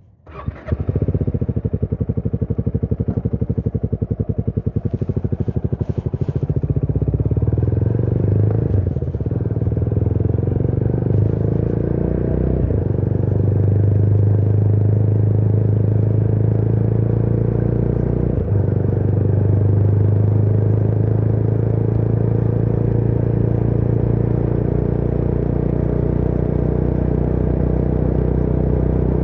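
Motorcycle engine catching about half a second in and running with a regular pulse, then pulling away and riding on steadily, with brief breaks a few times as it shifts gears.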